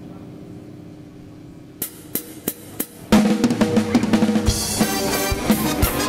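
Live band on stage: after a quiet lull with low tones fading, the drum kit plays a short fill of four hits, and about three seconds in the full band comes in loud with a steady drum beat.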